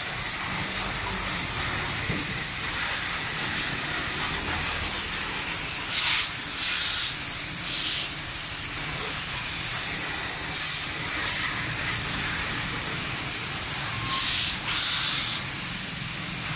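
Water spraying from a hose nozzle onto a mountain bike: a steady hiss that gets louder in spells, about six seconds in and again near the end, as the jet plays over the frame and wheels.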